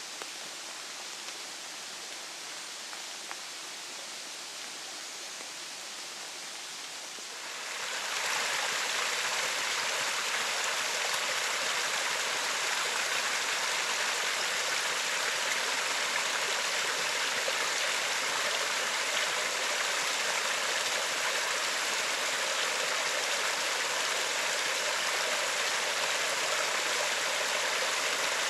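Steady rushing of running water, an even hiss with no distinct drops or splashes. It grows noticeably louder about eight seconds in and then holds steady.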